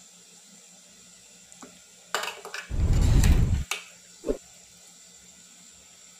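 Water running briefly in a gush of about a second and a half, then a single short knock.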